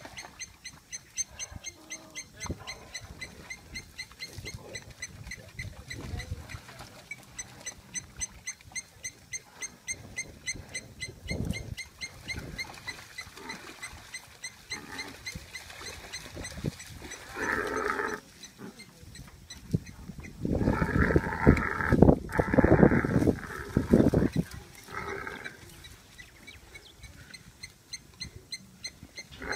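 An antelope seized by a pack of African wild dogs gives loud distress calls, once about halfway through and again in a longer run about two-thirds of the way in. Before that, a rapid, even series of high chirps repeats several times a second.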